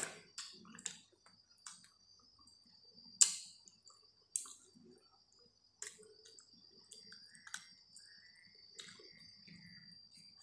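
Close-up eating sounds of rice and curry eaten by hand: soft wet chewing with scattered sharp mouth clicks and smacks, the loudest about three seconds in, and squishing as fingers mix rice on a steel plate.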